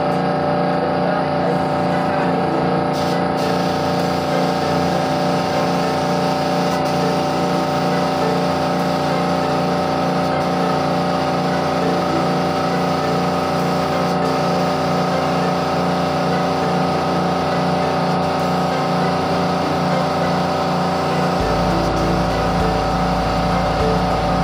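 Small air compressor running steadily, with a hiss over the motor's hum; the lowest part of the sound changes a little near the end.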